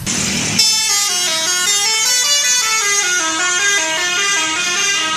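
Bus telolet horn, a multi-trumpet musical air horn, playing a quick tune of stepped notes that rise and fall. A short rush of noise comes first, and the tune starts about half a second in.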